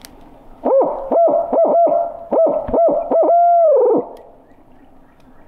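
A barred owl hooter, a mouth-blown owl call, gives a barred owl's 'who-cooks-for-you, who-cooks-for-you-all' cadence: about eight quick hoots, then one long hoot that drops in pitch at the end. It is a locator call blown to make roosted gobblers answer.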